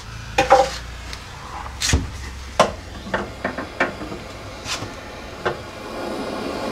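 Scattered clicks and knocks of a handheld gas torch being handled, then about six seconds in a steady hiss as the torch flame runs, heating rusted door-hinge bolts to break them free.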